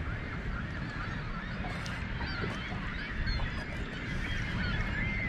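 A flock of waterbirds calling continuously, many short overlapping calls, over a low steady rumble.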